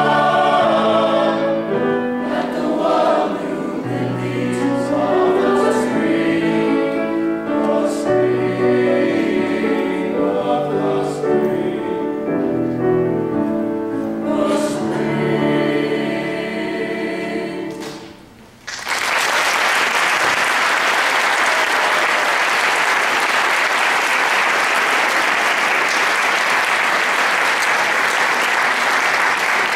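High school men's choir singing with grand piano accompaniment. About two-thirds of the way through, the song ends and the final chord fades away. The audience then breaks into steady applause.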